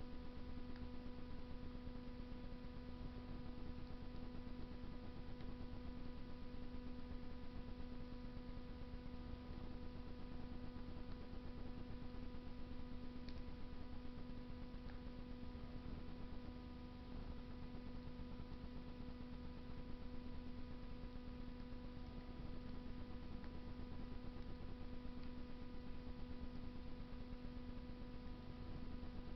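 Wood fire burning in a Russian masonry stove, heard as a few faint crackles, the clearest about 13 seconds in. A steady hum lies under them and is louder than the fire.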